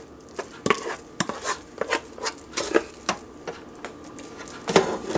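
A spoon scraping and knocking against the pressure cooker's inner pot and a ceramic serving bowl as mashed potatoes are scooped and spread, a run of irregular clicks and soft knocks two or three a second.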